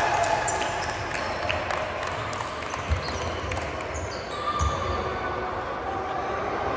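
Basketball bouncing on a gym floor during a game, with two louder bounces about three and four and a half seconds in, over the steady noise of the hall. Short high squeaks of sneakers on the court come through now and then.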